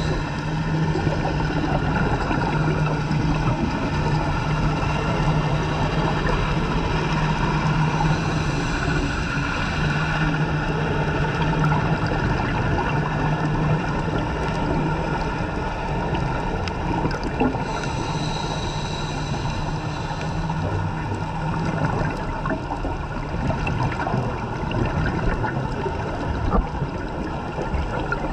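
Underwater on a scuba dive: a steady low engine drone carried through the water over a constant rush of bubbles and water noise, the drone fading away about three-quarters of the way through.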